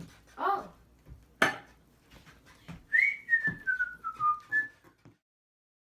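A person whistling a short run of notes that step downward in pitch, after a single sharp knock about a second and a half in. The sound cuts off abruptly shortly before the end.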